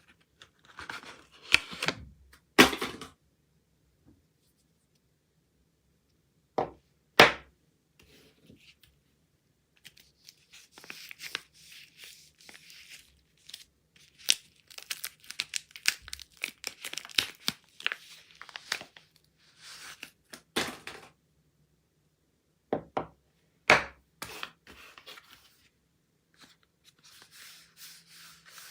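Soap wrappers being torn open and crinkled by hand: stretches of rustling and tearing, broken by several sharp snaps.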